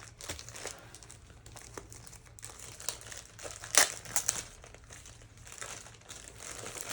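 Packaging being handled and opened, crinkling and rustling in short irregular crackles, with one sharper, louder crackle a little past halfway.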